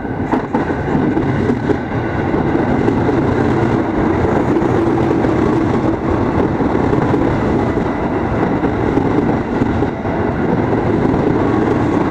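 KRL Commuterline electric multiple-unit train arriving at a station platform: a steady, loud rumble of its wheels running on the rails as the cars pass close by.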